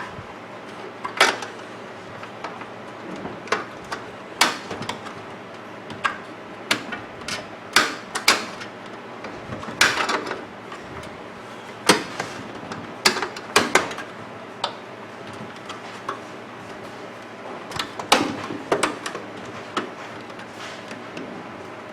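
Irregular sharp clicks and knocks of plastic parts being handled and pried loose while a microwave oven door's latch assembly is taken apart.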